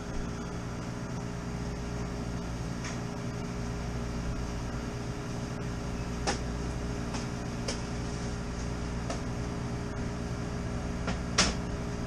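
Steady hum of running machinery with several fixed tones, broken by a few sharp clicks, the loudest near the end.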